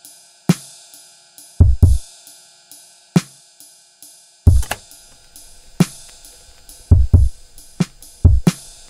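Background music: a drum-machine beat of heavy kick-drum hits under a steady hi-hat tick, about two ticks a second, over a faint held tone.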